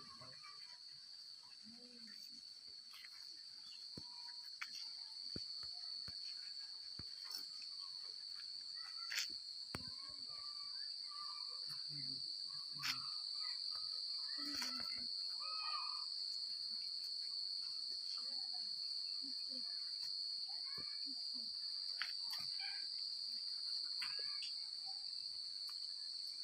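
A steady high-pitched insect chorus, one continuous drone that grows louder over the first dozen seconds, with scattered faint clicks and chirps.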